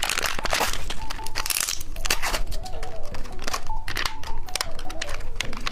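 Plastic candy packaging crinkling and tearing as it is opened, a dense run of sharp crackles.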